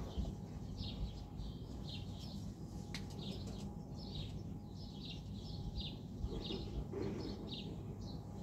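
Small birds chirping, short high calls repeating every second or so, over a steady low rumble.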